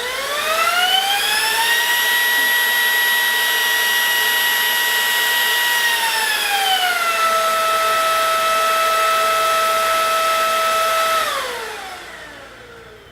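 Ryobi P718K cordless stick vacuum motor spinning up to a high, steady whine. About halfway it steps down to its lower speed, then winds down with a falling whine near the end as it is switched off.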